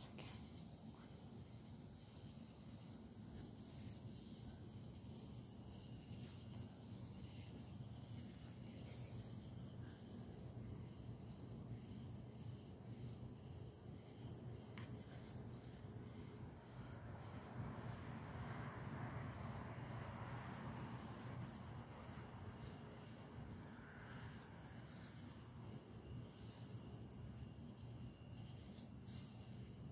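Crickets chirping faintly and steadily over a low hum, with a soft rustling noise swelling for a few seconds just past the middle.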